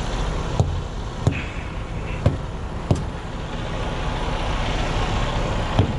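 Freightliner 122SD dump truck's diesel engine idling steadily, with five sharp knocks at irregular intervals over it.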